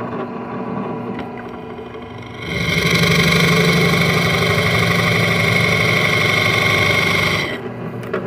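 Drill press running with a Forstner bit. About two and a half seconds in, the bit bites into the wood and the sound grows louder with a high whine as it bores a flat-bottomed hole; it drops back to the plain motor hum near the end as the cut stops.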